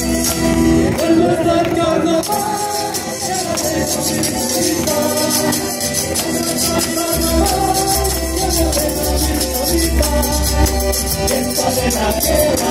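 Live ensemble of guitars, violins and a large bass drum playing a carnavalito, the Andean folk dance tune, over a steady rattling rhythm. The low drum drops out from about one second in and comes back about seven seconds in.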